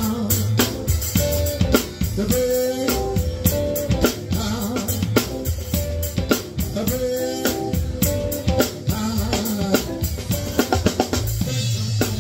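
A live band playing an instrumental groove, with the drum kit close by and loudest: a steady beat of kick, snare and cymbals under sustained pitched lines from the other instruments.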